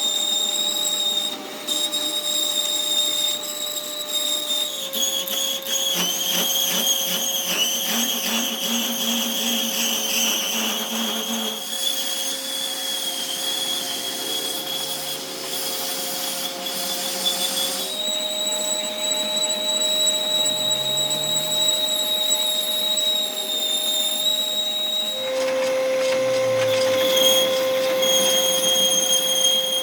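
Workshop machine tools running with a steady whine; the pitch steps slightly at several points. A dense run of rapid ticks sits in the middle stretch, as from cutting or grinding metal.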